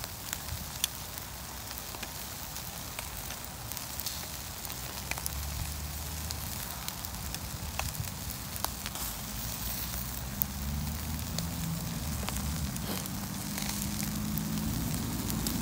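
Food sizzling and crackling on a barbecue grill: a steady hiss with many scattered sharp pops.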